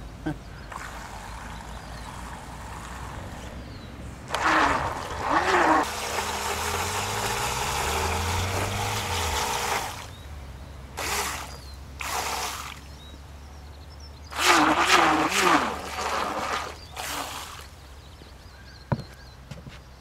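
People's voices, and for about four seconds in the middle a steady motor hum with a few pitch glides: the small electric motor of a homemade PVC-pipe RC boat running on the water.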